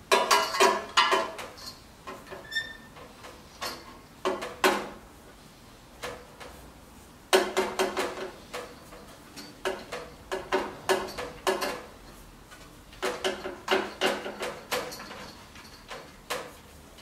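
Motorcycle exhaust pipes, collars and rings clinking and rattling as they are worked into place by hand, in several bursts of metal clatter with short pauses between.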